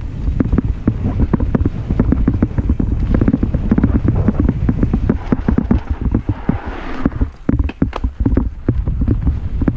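Mountain bike ridden fast down a dirt singletrack: wind buffeting the microphone over the rumble of the tyres, with the bike rattling and clicking over bumps. A brief scraping hiss comes about two-thirds of the way in.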